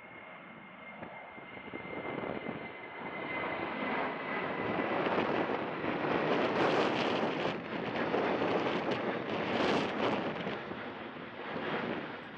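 Boeing 737 twin jet engines at climb power as the airliner passes close overhead after takeoff. The engine noise swells to its loudest through the middle of the passage, with a thin high whine in the first few seconds that fades as the aircraft comes over.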